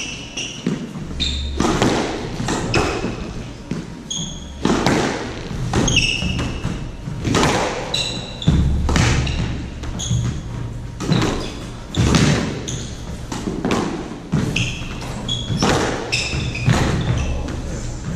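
Squash rally: a squash ball is struck by racquets and smacks off the court walls every second or so, often in quick pairs of hit and wall strike. Shoes squeak in short bursts on the hardwood floor between shots.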